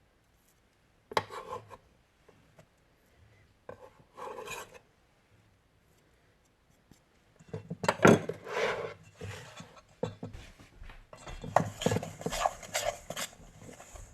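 Kitchen utensils scraping and clinking against a bowl or dish: two short scrapes in the first half, then busier, near-continuous clatter and scraping from about halfway.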